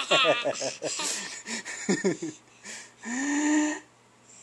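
An 11-month-old baby laughing at a fake sneeze in quick, breathy bursts, with a held 'ahh' about three seconds in.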